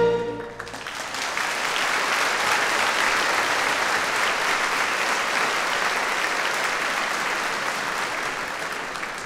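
The orchestra's last held chord stops about half a second in, and a concert hall audience breaks into applause, building within the first second and holding steady before easing off slightly near the end.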